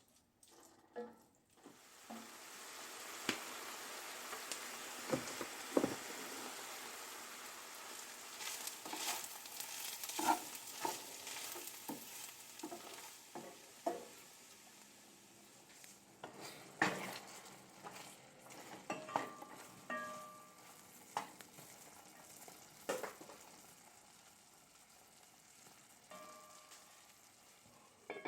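Food sizzling as it fries in a pan, beginning about two seconds in and slowly dying down, with scattered knocks and scrapes of a utensil stirring it in the pan.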